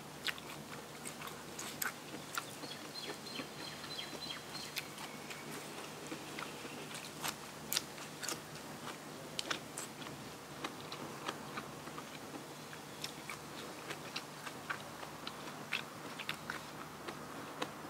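Close-miked chewing and biting of a spicy papaya salad meal with raw vegetables, with irregular crisp crunches scattered throughout.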